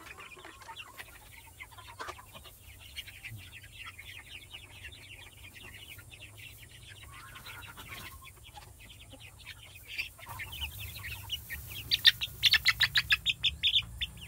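A flock of young H&N Dominant CZ chickens peeping and chirping, with a louder, fast run of peeps near the end. The birds are still unsettled in their new pen.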